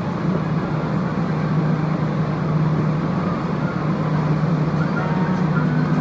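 Steady low hum of a Montreal metro car standing at a station with its onboard equipment running, over a constant background hiss; faint higher tones join in near the end.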